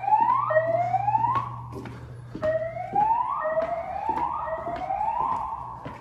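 EST2 voice-evacuation fire alarm speakers sounding the whoop tone: rising whoops of about a second each, three in a row, a pause, then three more, fading near the end. Footsteps click on a tile floor.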